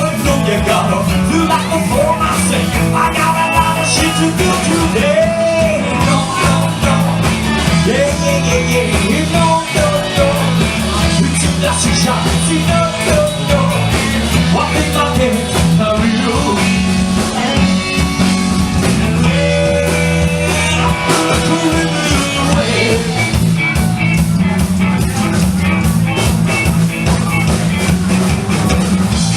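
Four-piece band playing a rock number live, with amplified instruments and some singing.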